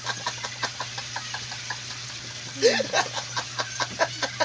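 A man laughing in a quick run of short breathy bursts, with a louder, higher laugh about two and a half seconds in.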